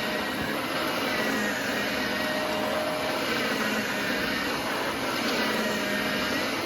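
Shark Navigator bagless upright vacuum cleaner running steadily, a constant motor whine over the rush of air being drawn through it.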